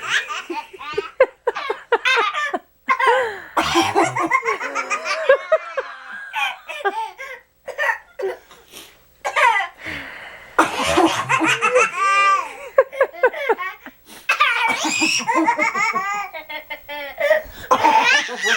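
A baby laughing hard in repeated belly-laugh bursts, set off by an adult's fake coughs, with short breaks between the bursts.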